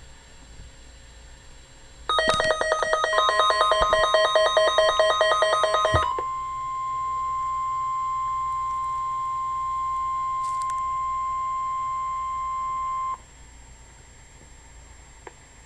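NOAA Weather Radio EAS alert tones: a rapid, pulsing electronic alarm of several stacked tones, ringing for about four seconds, overlapped and then followed by a steady single high tone, the weather radio warning alarm tone. The steady tone lasts about ten seconds and cuts off suddenly.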